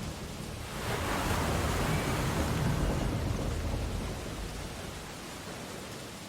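Ocean waves on a beach: a wave surges in about a second in, grows louder, then washes out and fades over a few seconds, over a steady hiss of surf.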